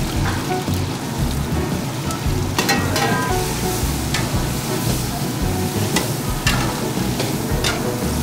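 Green chillies and diced yellow cucumber sizzling in hot oil in an aluminium pot, stirred with a metal ladle that clinks against the side of the pot several times.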